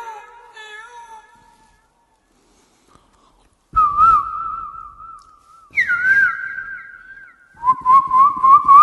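A man whistling bird-call imitations. After a short quiet spell comes a warbling note, then a higher note that slides down, then a quick pulsing, trilling whistle that climbs slowly in pitch.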